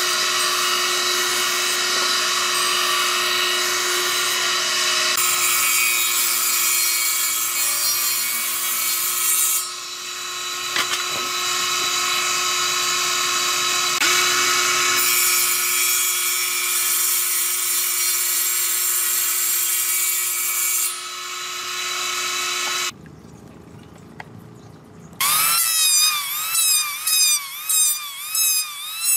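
A stationary woodworking machine runs steadily at a constant pitch while boards are fed over its jointer cutter and then through its saw blade, the sound shifting each time a board engages. Near the end, after a brief quieter stretch, a handheld electric planer makes quick short passes, its pitch dipping with each one.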